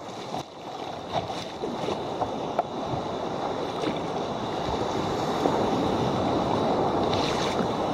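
Sea water washing and splashing against the hull of a sea kayak moving through choppy sea, with scattered small splashes. The sound rises gradually in level over the first few seconds.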